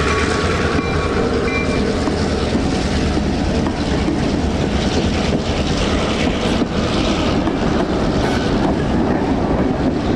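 A freight train rolls past close by, with a steady rumble of steel wheels on the rails. A few light clicks come later, as the trailing diesel-electric locomotive comes alongside with its engine running.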